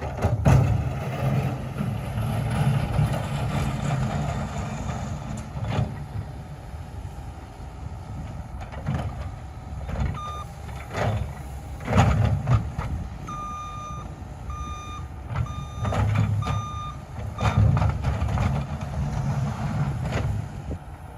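Engine of a piece of heavy equipment working, surging and easing off, with several knocks and clanks. Near the middle a backup alarm beeps about six times while the machine reverses.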